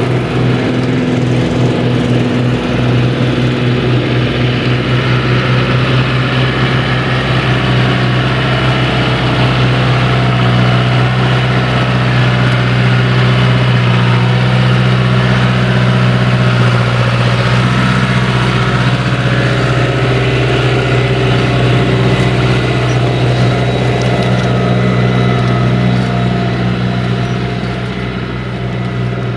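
John Deere tractor's diesel engine running steadily under load as it pulls a mounted plow through wet ground, its pitch holding even; the sound eases off a little near the end as the tractor passes.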